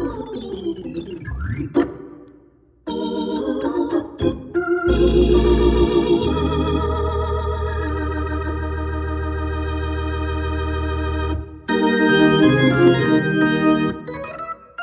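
Hammond B3 organ played through a Leslie 122 rotating speaker, freshly serviced. Its chords carry the Leslie's warble. A pitch sweep comes about a second in, then a brief pause, then a long held chord over a deep bass note. Busier, quicker chords follow near the end.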